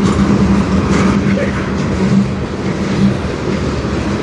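Cars of a slow freight train rolling past close by: a steady rumble of steel wheels on the rails with a low hum that thins out about three seconds in.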